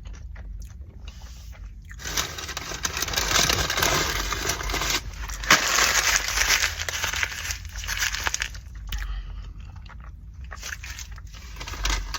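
Close-up crackling and rustling eating noises, chewing and handling of food, thickest from about two to eight and a half seconds in.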